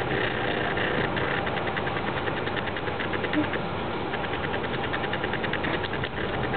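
A steady mechanical whirr with a rapid, even ticking running through it.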